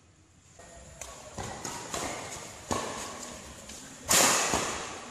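Badminton rackets striking a shuttlecock in a rally: a series of sharp hits, each fading slowly in a large roofed hall, the loudest about four seconds in.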